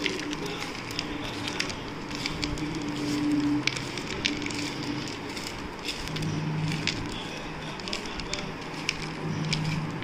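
A bare hand tossing and squeezing a dry puffed-rice and sev mix on a plate: a steady dry rustle and crackle with many small sharp clicks.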